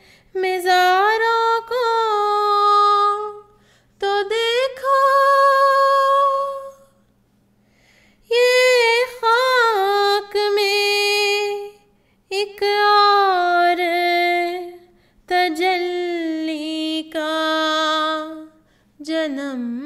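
A single high voice singing an Urdu nazm unaccompanied, in about six long phrases of drawn-out, bending notes with short pauses between them.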